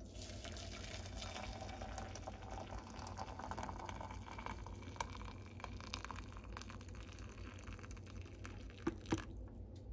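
Hot water poured in a steady stream from a kettle into a large ceramic mug of loose-leaf tea, filling it. Two small knocks near the end as the pouring stops.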